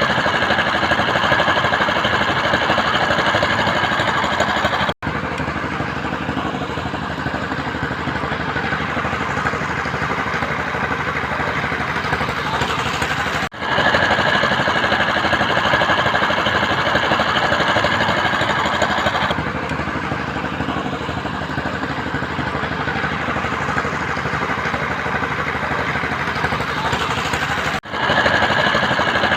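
Construction machinery running steadily, a dense engine noise with a constant high whine over it. It cuts off abruptly and resumes three times, about 5, 13 and 28 seconds in.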